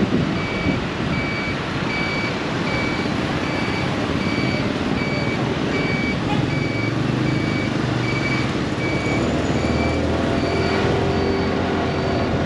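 Motorcycle ride through city traffic: wind rush and engine noise, with a short electronic beep repeating about three times every two seconds that stops near the end.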